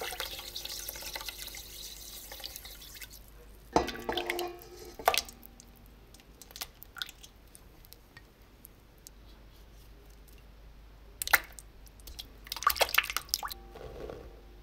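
Granulated sugar poured into a stainless steel mixer bowl of milk, a steady hiss for about three seconds. Sharp knocks and clinks against the metal bowl follow, one about four seconds in and a quick run of small clicks near the end, with dripping.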